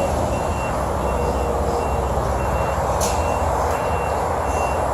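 Steady rumbling, hissing noise with a faint high-pitched beep repeating about every 0.7 seconds.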